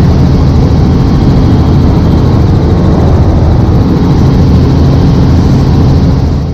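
Helicopter engine and rotor noise, loud and steady, cutting off abruptly near the end.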